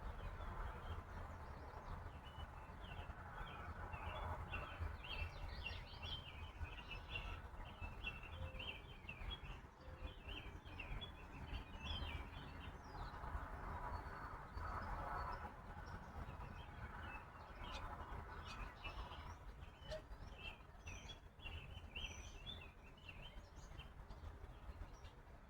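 Small birds chirping in quick, short notes, in two long runs with a thinner patch between them, over a steady low rumble.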